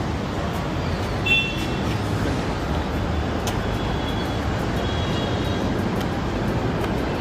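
Steady low rumble of outdoor street traffic, with a brief high-pitched sound about a second in and faint high tones again around four to five seconds.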